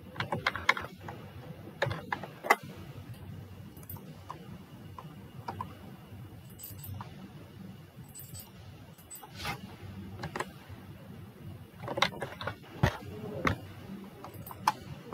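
Irregularly spaced sharp clicks from a computer mouse and keyboard, with a cluster near the start and another near the end, over a low steady background hum.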